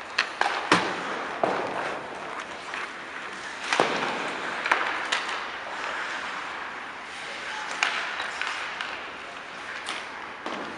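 Ice hockey play: sharp clacks of sticks and puck, several in the first second and more scattered through, over a steady scraping haze of skates on the ice.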